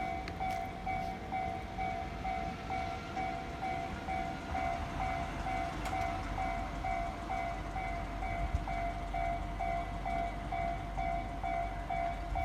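Japanese railway level-crossing warning alarm ringing steadily at about two dings a second, over the low rumble of road traffic. It sounds while the barriers are down and a train is due.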